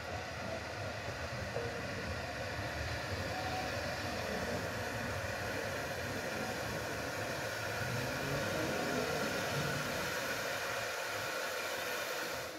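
Isle of Man Railway narrow-gauge steam locomotive and its train approaching through a station, a steady running noise from the engine and carriages.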